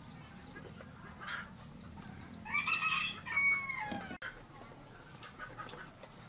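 A rooster crows once, about two and a half seconds in: a call of about a second and a half that ends on a falling note.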